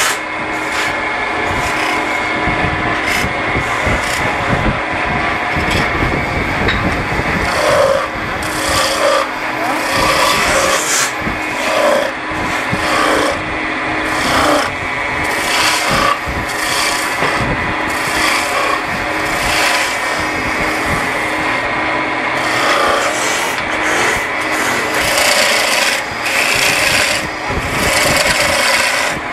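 Wood lathe running with a steady hum while a hand-held turning tool scrapes and cuts into the spinning wooden blank. The cuts come in repeated passes, about one every second or two.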